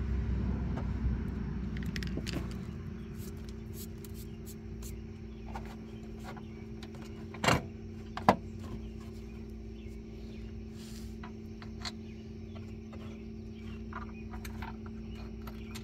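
Metal hardware being handled while a bolt is fitted by hand into an ATV winch mount: scattered light clicks and clinks, with two sharp metal knocks about halfway through, over a low steady hum.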